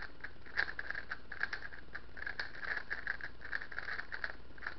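GAN 356S speedcube being turned fast by hand: a rapid, uneven stream of light plastic clicks and clacks as the layers snap round.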